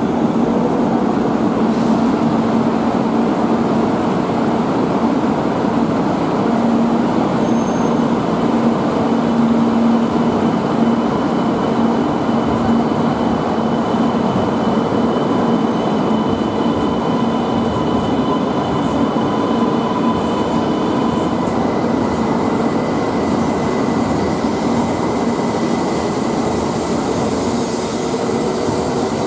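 E2 series Shinkansen train pulling out of the platform and sliding past close by, a steady rumble of running noise with humming and whining tones. A higher whine changes pitch about two-thirds of the way through.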